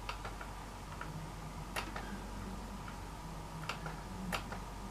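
A few irregularly spaced clicks from a laptop touchpad as the pointer is worked through menus. The sharpest come about two seconds in and near the end.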